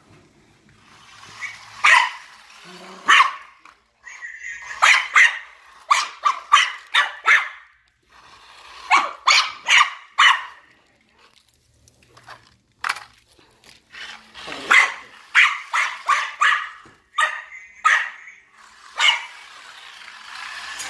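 Maltese dog barking repeatedly at a remote-control toy police car, short high barks in quick clusters with brief pauses between them.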